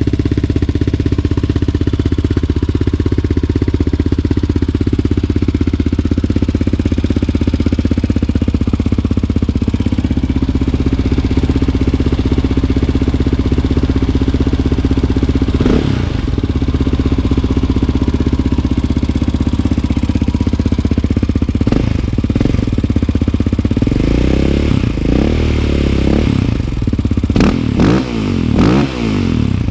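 Yamaha Raptor 700R quad's single-cylinder four-stroke engine through a Big Gun EXO full exhaust, idling steadily after a cold start. It gives a couple of quick throttle blips about halfway, then a run of short revs near the end. The owner says it is running a little rich.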